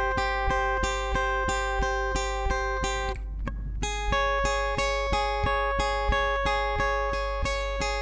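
Steel-string acoustic guitar played fingerstyle, plucking the top two strings in a steady run of repeated notes, about four a second. About three seconds in there is a short break as the fretting hand shifts to the next chord, then the picking carries on over the new chord.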